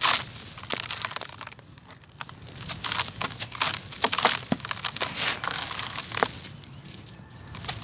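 Dry, gritty clumps of grey sand mix crunched and crumbled by hand, breaking apart with grains pouring back into a plastic tub, in uneven crackling bursts with quieter stretches about two seconds in and near the end.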